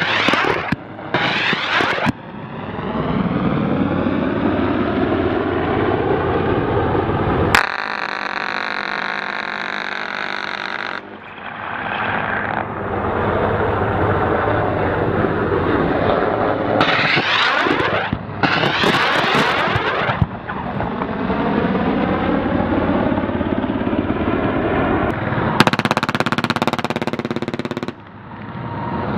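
Military helicopter flying, its engine and rotor tone sliding in pitch, broken by several bursts of gunfire.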